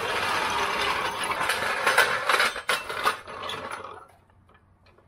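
Strongway floor jack rattling and clanking as it is rolled across a concrete garage floor, then a couple of separate clanks as it is set in place. The sound falls away to near silence about four seconds in.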